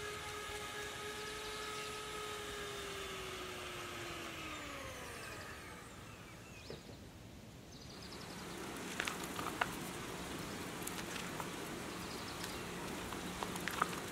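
Electric hand mixer whirring at high speed as it whips butter and condensed milk into buttercream in a glass bowl. Its pitch falls as it winds down, about four to five seconds in. After a short lull, a spatula scrapes and clicks against the glass bowl.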